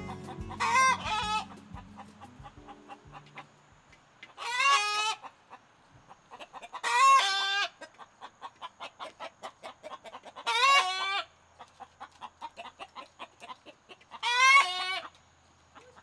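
A hen calling: five loud, drawn-out squawks about every three to four seconds, with quick soft clucks in between.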